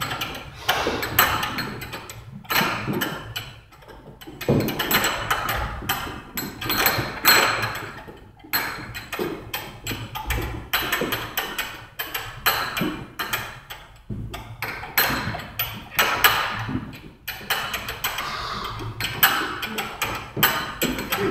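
Heavy battle rope whipped in waves, slapping the floor again and again in an uneven run of thuds, with a brief lull about four seconds in.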